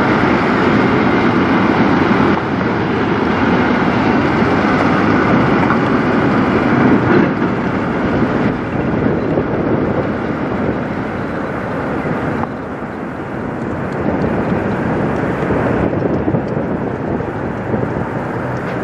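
Peterbilt semi truck's diesel engine running under load as it pulls a grain hopper trailer away, with tyre and road noise. The sound steps down and grows quieter about two-thirds of the way through as the truck moves off.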